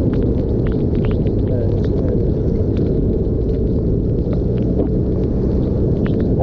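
Steady low rumble of a Yamaha TMAX parallel-twin scooter under way, mixed with wind on the camera, and many small irregular ticks of raindrops hitting the camera.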